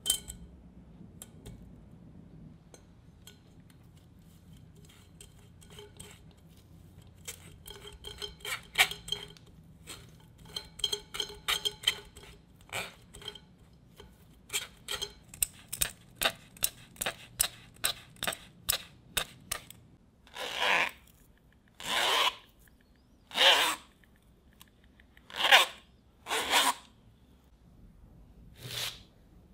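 Metal spoon scraping and pressing boiled potato through a fine wire-mesh sieve: a long run of quick scraping clicks, then several longer, louder rasping strokes about a second apart.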